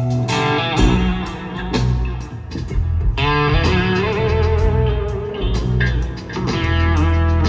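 Live rock trio playing loud: electric guitar playing lead lines with bending notes, over electric bass guitar and drums.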